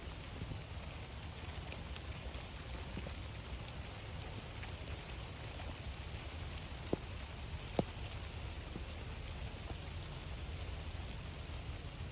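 Steady light rain falling, with scattered drops ticking, and two sharper ticks about seven and eight seconds in.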